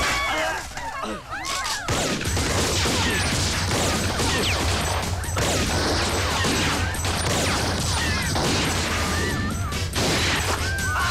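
Action-film fight sound effects: a dense run of hits and crashes, joined about two seconds in by a steady low rumble.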